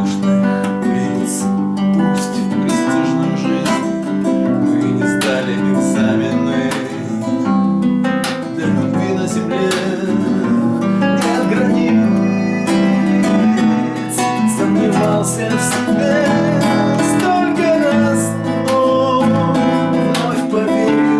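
Acoustic guitar strumming.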